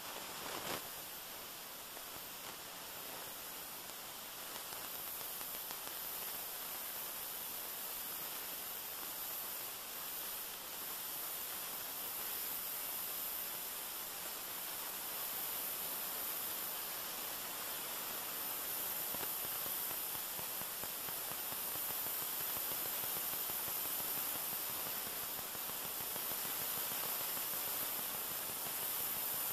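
Steady electronic hiss and static from a camcorder microphone that has cut out, growing slowly a little louder, with a single click just under a second in.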